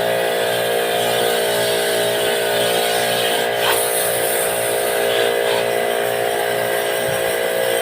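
A small motor running steadily with a constant hum and hiss.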